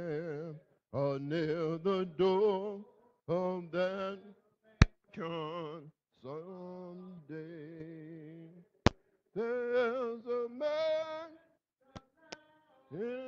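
A man singing a hymn unaccompanied, with a wide vibrato and short pauses between phrases. A few sharp clicks cut in, the loudest about a third of the way in, another about two-thirds in and two faint ones near the end.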